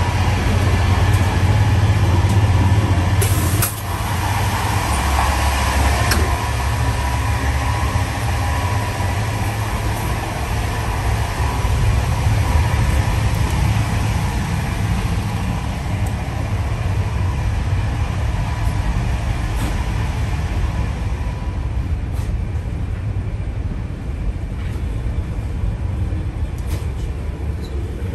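Steady low rumble of a passenger train running at speed, heard from inside the carriages, with one sharp clack about three and a half seconds in.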